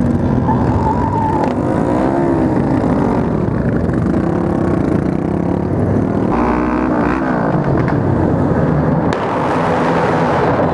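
A group of motorcycles, many of them Honda Grom 125s, accelerating together from the helmet-mounted rider's own bike, with engine pitch rising and falling through the gears. A single sharp pop about nine seconds in is possibly a backfire.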